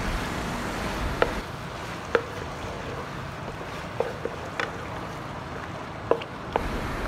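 Wooden spatula stirring penne and chicken through thick white sauce in a pan: a wet squishing over a steady hiss, with about six sharp clicks of the spatula against the pan.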